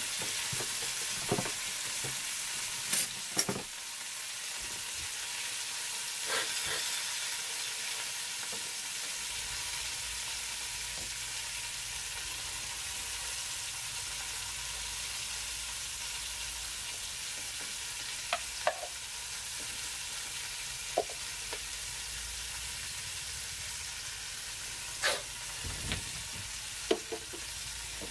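Food sizzling steadily in a lidded frying pan on the stove, with a few sharp knocks and clinks of a spoon and containers against the counter and plastic bowls.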